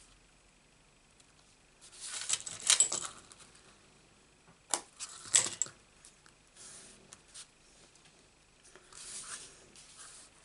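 A layered paper card being handled and turned around on a craft mat: short bursts of rustling with sharp clicks, about two seconds in and again around five seconds, and softer ones near the end.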